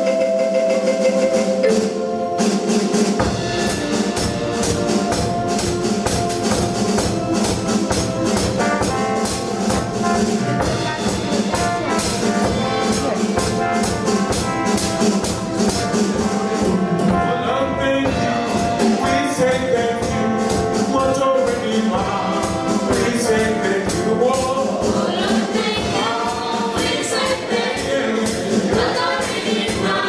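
Live upbeat gospel-style music from a band and children's choir: sustained chords at first, then a steady fast drum and tambourine beat comes in after a couple of seconds, with the choir's singing joining about halfway.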